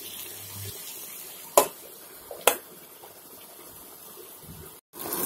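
Spiced vegetables sizzling quietly on a tawa, with two sharp metal clinks about a second and a half and two and a half seconds in as the pan is covered with its aluminium lid.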